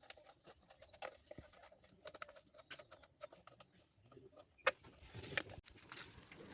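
Faint, scattered light clicks and taps of hand tools and small metal parts being handled, with one sharper click near the end.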